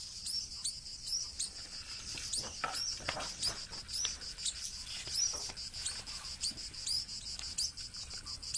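Outdoor insect ambience: a steady high trill of crickets, with many short, high, falling chirps from small birds, about two a second.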